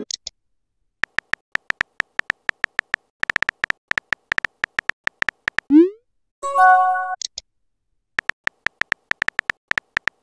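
Texting-app sound effects: rapid synthetic key-tap clicks of an on-screen typing animation for a few seconds, then a short rising swoosh as the message sends and a brief chime as it appears. After a pause the key-tap clicks start again.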